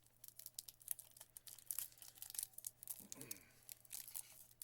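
Faint rustling and crinkling as trading cards and their packaging are handled, in many small, sharp, irregular rustles.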